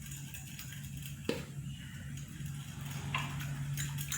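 A spoon stirring yeast, sugar and salt into warm water in a bowl. It gives one sharp clink against the bowl about a second in and fainter taps later, over a steady low hum.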